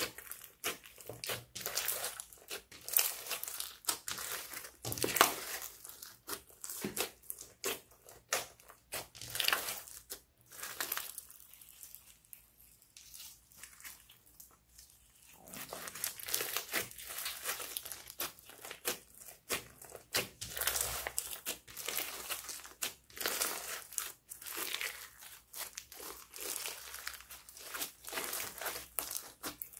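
Hands squishing and kneading clear slime mixed with small beads and glitter: fast, irregular wet crackles and pops. The crackling drops off for a few seconds around the middle while the slime is lifted and stretched, then picks up again.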